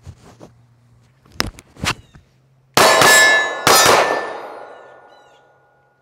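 Sig P320 XCompact 9mm pistol fired twice, about a second apart, after a few light clicks; both hits set a steel target ringing with a bright metallic tone that fades over about two seconds.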